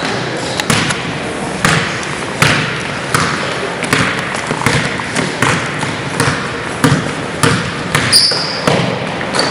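Basketball dribbled on a hardwood gym floor, a steady bounce about three times every two seconds. Near the end come a couple of short, high squeaks.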